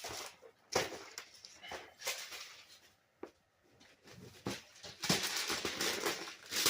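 Wrapping paper rustling and crinkling in irregular bursts, with a quieter spell in the middle.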